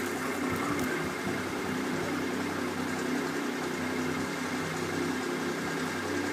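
A steady, even mechanical hum with a few low pitched tones, like a motor running.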